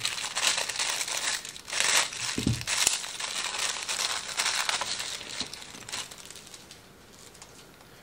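Thin plastic packaging bag crinkling and rustling as it is handled and opened to take out the battery charger, busiest in the first few seconds and growing quieter toward the end. A soft low thump about two and a half seconds in.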